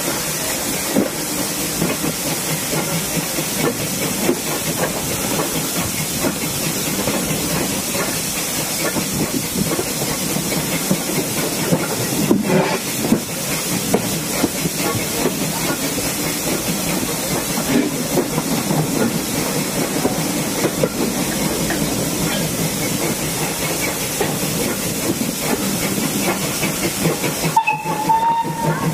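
Steam locomotive hauling a train, heard from a coach window: a steady hiss of steam over the running noise of the coaches on the track.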